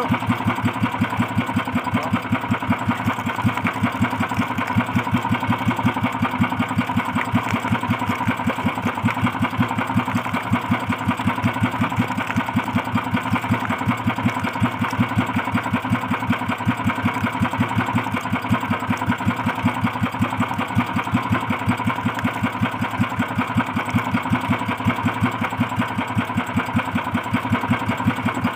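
Small boat engine of an outrigger boat running steadily at idle, with an even, rapid chugging pulse.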